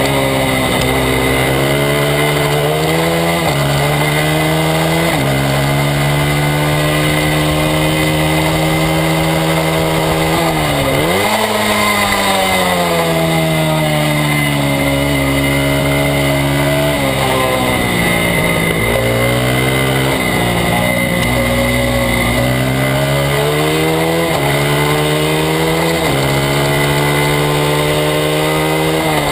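Small single-cylinder four-stroke engine of a Honda XR/CRF100-class race bike at full race pace, revving up and dropping in pitch at each upshift. Twice, about a third of the way in and again at the end, the revs fall sharply and climb straight back as the bike slows for a corner and accelerates out. Steady wind rush and a high whine run underneath.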